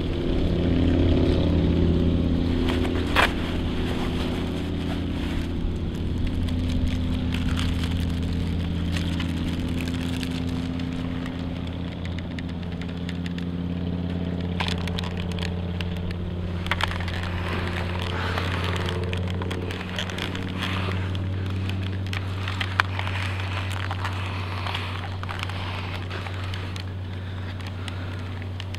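Slow background music of held low drone notes and sustained chords that change every few seconds, with crackling and rustling over it.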